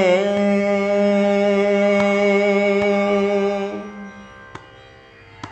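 A man's voice singing Carnatic music, holding the long final note of the song steady before it fades out about four seconds in. Two small clicks follow near the end.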